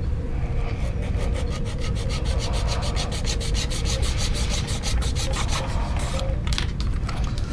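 Rapid back-and-forth hand filing on a small model-kit part, about seven strokes a second, trimming material away so an LED board fits. The strokes stop about six seconds in, followed by a few light clicks.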